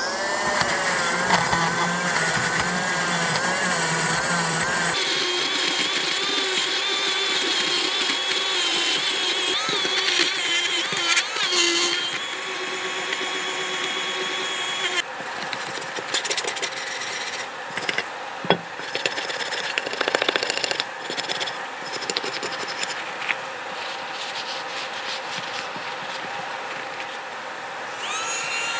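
A hand-held rotary tool spinning up and running against the cast-iron body of a Stanley Bailey No. 5 hand plane to clean off rust, its whine wavering in pitch under load over a steady scraping rub. The whine drops out around the middle and the tool spins up again near the end.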